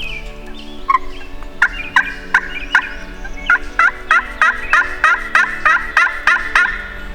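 A long series of turkey yelps: about sixteen short, sharp notes at roughly three a second, with a brief pause partway through.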